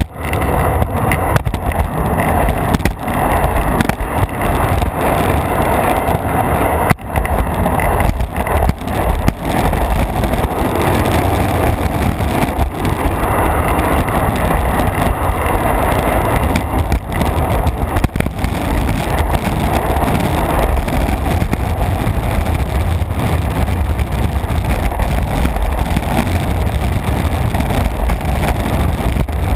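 Skateboard wheels rolling fast over an asphalt path, a loud steady rumble picked up close to the deck, with a few sharp knocks now and then.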